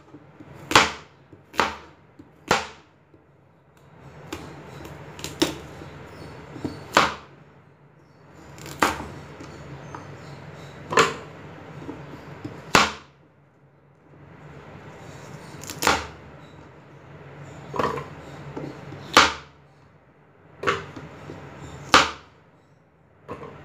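Chef's knife slicing a raw carrot into rounds on a plastic cutting board: a sharp knock each time the blade goes through and hits the board, about fourteen cuts at an uneven pace of one every second or two.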